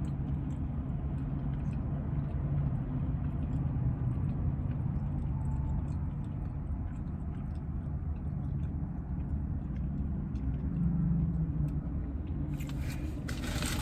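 Steady low rumble inside a car cabin, with faint chewing and small clicks of someone eating a breakfast sandwich. A louder rustling noise comes in near the end.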